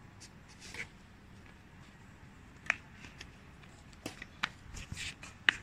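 Badminton racquets striking a shuttlecock: several sharp taps at uneven intervals over faint outdoor background noise.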